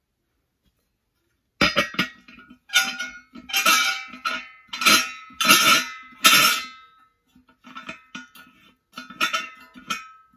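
Silver oil-lamp parts knocking and clinking together as they are handled: a string of irregular metallic strikes, each with a short bright ring, starting about a second and a half in.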